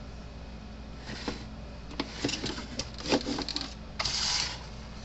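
The plastic case of a Gallagher MX2500/MX5000 electric fence energizer being unclipped and pulled apart: a string of clicks and knocks, then a short scraping rush about four seconds in, over a steady low hum.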